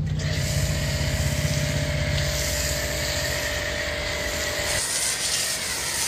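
Shakti S5 1900-watt electric pressure washer running, its motor humming steadily under the hiss of a foam cannon spraying. The hum fades about five seconds in, leaving mostly the spray hiss.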